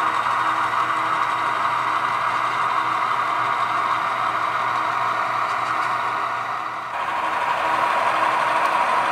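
Sound decoders in HO scale model diesel locomotives playing the engine running sound through the models' small onboard speakers: a steady, hissy engine drone with a faint regular throb underneath. About seven seconds in the sound jumps louder and brighter.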